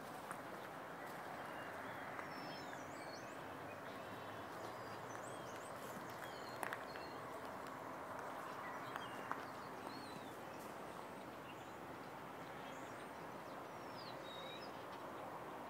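Small birds chirping faintly now and then, short sweeping calls, over a steady background hiss, with a few light knocks.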